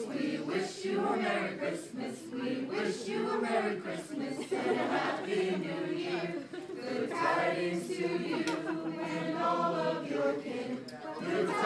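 A mixed group of carollers, men and women, singing a Christmas carol together without instruments.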